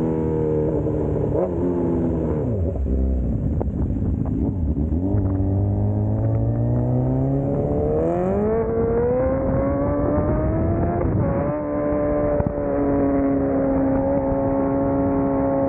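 Sport motorcycle engine slowing with its revs dropping, then pulling up through a long steady rise in pitch. A short dip in revs, like a gear change, comes about three-quarters in, after which the engine holds a steady pitch at cruising speed.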